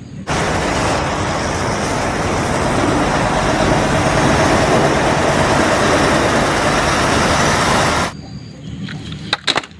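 Truck engine sound, an inserted sound clip that runs steadily for about eight seconds, starting and cutting off abruptly.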